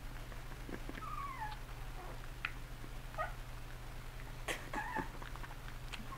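Newborn boxer puppy giving short, high, mewling whines that fall in pitch, about three of them, with a few sharp clicks while it feeds from a bottle, over a steady low hum.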